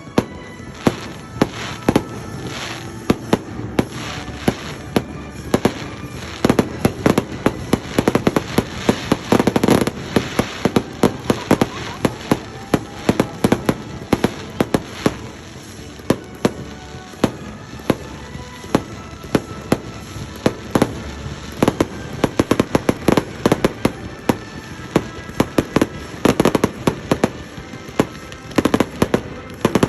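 Fireworks going off in rapid succession: a dense run of sharp bangs and crackling pops throughout, heaviest about seven to ten seconds in and again near the end.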